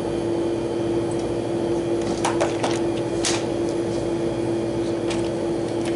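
Steady machine hum with one constant tone, with a few light metallic clicks from a small hand tool as a fan blade is fastened onto a small condenser fan motor, most of them bunched about two to three and a half seconds in.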